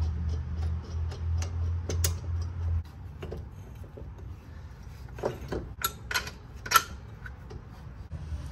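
Ratchet wrench clicking at an even pace over a low hum while the coilover's strut-to-knuckle bolts are tightened; the hum stops about three seconds in. A few sharp metal clanks follow near the end.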